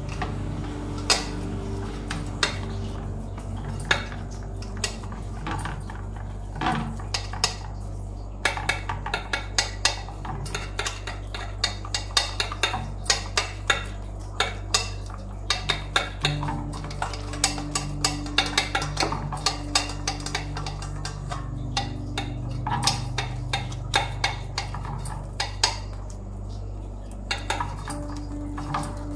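Hands patting and pressing soft rice-flour dough flat into a metal pan, giving sharp irregular taps and clicks against the metal. The taps are sparse at first, come quickly from about eight seconds in, and thin out near the end. Soft background music with held notes runs underneath.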